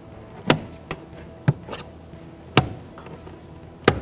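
About five sharp, irregularly spaced taps and clicks of a plastic trim tool working a rubber door seal down over the edge of the car's interior kick-panel trim. The loudest comes about two-thirds in, another right at the end.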